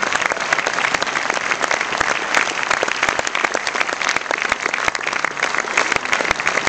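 A cinema audience applauding: dense, steady clapping from a large crowd.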